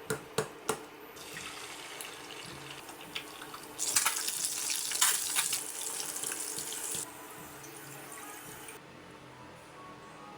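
A few sharp clicks, then water running from a tap into a sink, louder and splashier for about three seconds in the middle before it dies away.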